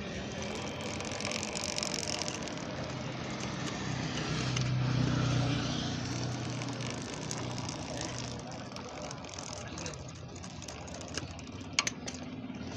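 Motorcycle engine running with the drive chain turning, as engine oil is put on a noisy chain to quiet it. The engine sound swells about five seconds in, and there is a sharp click near the end.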